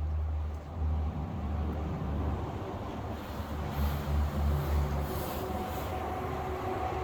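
Road traffic noise: a steady low rumble of vehicles on a highway, with one passing vehicle swelling up and fading about halfway through.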